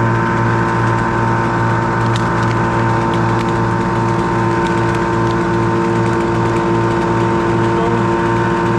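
An engine running at a steady speed, its drone unchanging with a slight regular pulsing and no revving.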